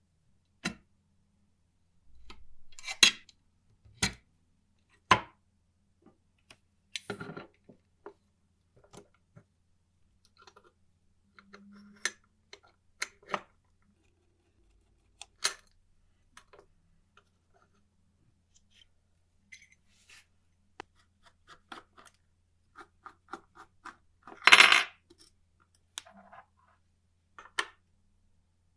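Small metal parts and hand tools being handled on a workbench: scattered clinks, taps and knocks, with a louder rattling clatter about 24 seconds in.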